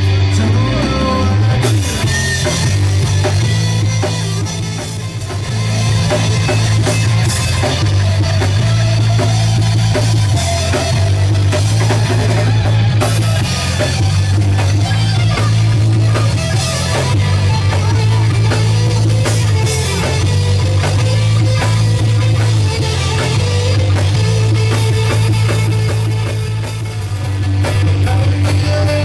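Live rock band playing: electric bass, drum kit and two electric guitars, with a loud, steady bass line underneath.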